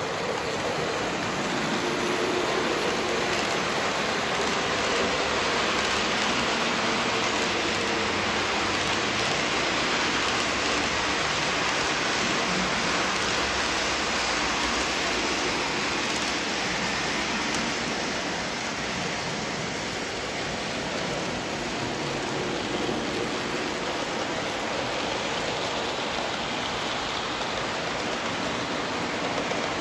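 Model freight train rolling past close by: a steady rushing hiss of the locomotive and many wagons' wheels running on the rails.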